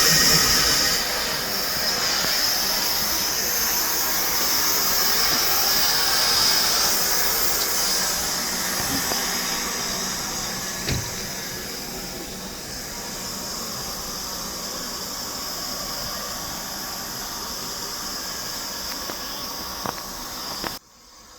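Steam locomotive hissing steam with a high squeal, loudest for the first several seconds and then slowly fading. A sharp click comes about eleven seconds in, and the sound cuts off abruptly just before the end.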